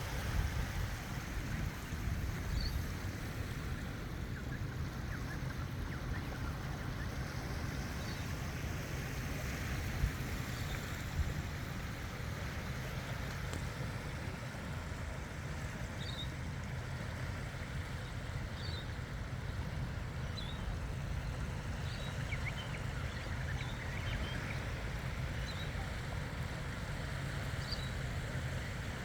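Steady seashore ambience: wind and water noise with a strong low rumble, and faint short high chirps scattered through it. Two brief knocks stand out about ten and eleven seconds in.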